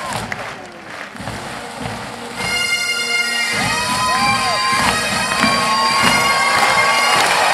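Massed Highland bagpipes striking up over crowd noise about two seconds in: the drones come in first as a steady chord, and the chanters take up the tune about a second later.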